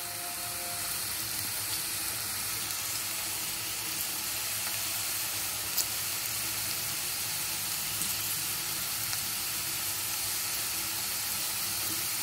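Gram-flour-coated potato sticks frying in hot oil in a pan, a steady sizzle, with one brief click about six seconds in.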